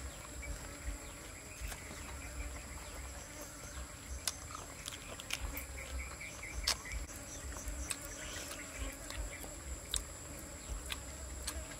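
Steady high-pitched chirring of insects in the background, with scattered short clicks and mouth sounds of someone chewing food.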